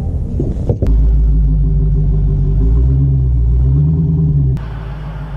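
Dodge Challenger Hellcat's supercharged 6.2-litre V8 running on its factory exhaust, before the mid mufflers are replaced: a deep, steady rumble with a slight rise in revs near the middle. It cuts in suddenly about a second in and drops to a quieter rumble near the end.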